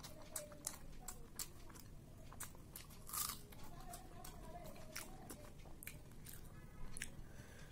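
Close-up eating sounds: a person chewing a mouthful of rice and mocha chingri (banana-flower and prawn curry), with many soft, irregular mouth clicks and one louder click about three seconds in. Fingers mixing rice on a glass plate add faint ticks.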